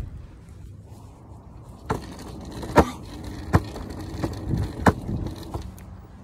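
Hoverboard wheels rolling over a concrete sidewalk with a steady low rumble, and a run of sharp knocks from about two seconds in as they cross the slab joints and cracks.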